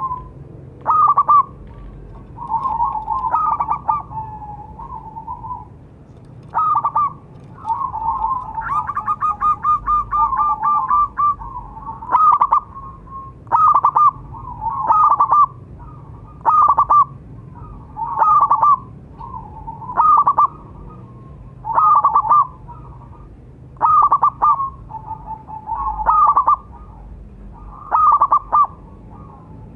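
Zebra dove cooing: short phrases of quick, staccato coo notes repeated about every two seconds, with a longer run of fast, even notes about nine seconds in.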